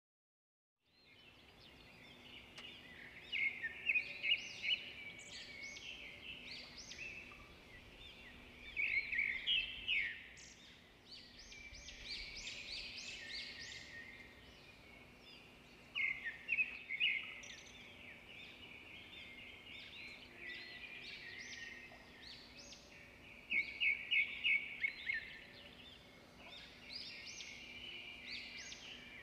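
Small birds chirping and twittering in repeated bursts of quick, high notes over a steady low hum.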